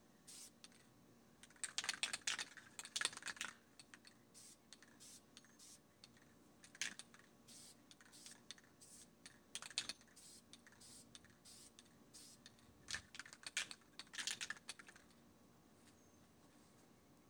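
Faint aerosol spray-paint can in use: clusters of quick clicks and hiss about two seconds in and again near the end, with a few single clicks between.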